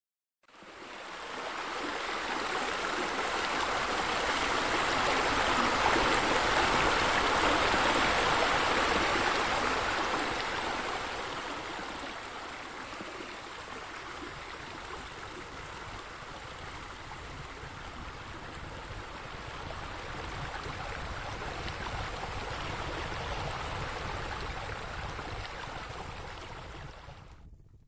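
Running water from pool water features: an even, splashing rush that swells over the first several seconds, eases off, and fades out near the end.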